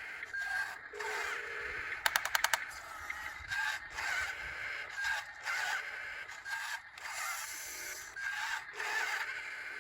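Small electric motors and servos of radio-controlled model construction vehicles whining in short bursts, with scraping, and a quick run of clicks about two seconds in.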